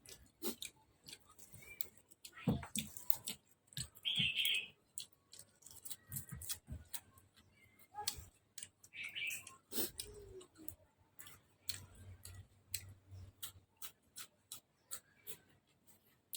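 Close-up eating sounds from a bowl of beef noodle soup: irregular sharp clicks and taps of utensils against the bowl, with chewing and a couple of short slurps, about 4 and 9 seconds in.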